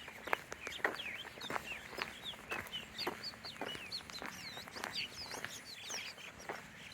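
Birds calling with many short, overlapping chirps and rising and falling whistles, mixed with quick sharp clicks.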